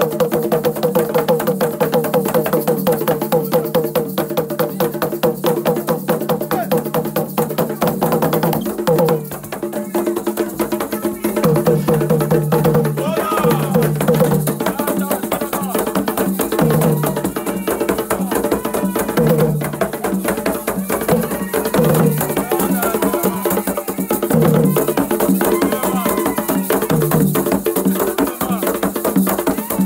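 Music with a steady beat of rattles and percussion over a bass line, with voices singing.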